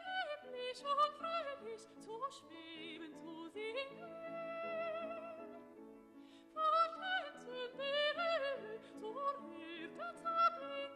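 Classical music: a high operatic voice singing with vibrato over instrumental accompaniment, in two phrases with a short break about six seconds in.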